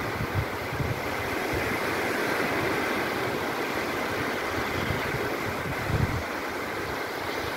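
Small waves washing in shallow sea water, with wind buffeting the microphone in gusts.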